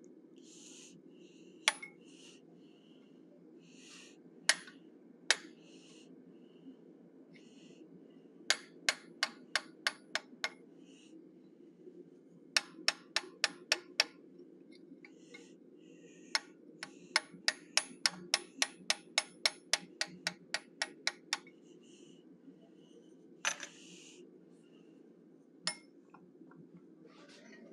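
Light hammer taps on a hand-held necking tool set against a small forged iron bear head in the anvil's hardy hole, softening its hard edges. There are a few single taps at first, then quick runs of about four to five light taps a second with short pauses between, and two single strikes near the end. A faint steady low hum runs underneath.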